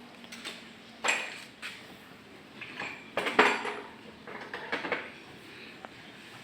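Metallic clinks and knocks in a few short bursts, the loudest about three seconds in, like metal tools or parts being handled.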